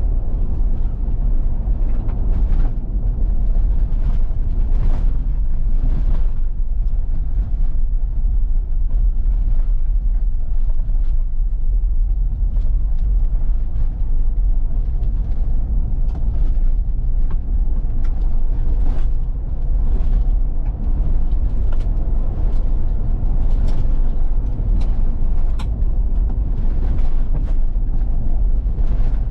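Ford Bronco with a 2.7 EcoBoost twin-turbo V6, heard from inside the cabin while driving along a dirt road: a steady low rumble of tyres and drivetrain, with frequent small clicks and knocks.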